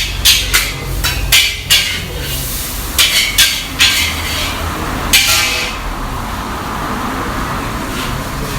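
Cookware and metal utensils clanking and knocking, about ten sharp strikes in three or four clusters over the first five seconds, the last one ringing. After that, a steady hiss of a busy restaurant kitchen.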